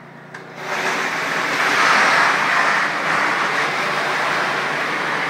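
Hot-water pressure washer rated 3,500 psi at 260 degrees, its spray jet hitting a tile floor: a loud, steady hiss that starts abruptly under a second in.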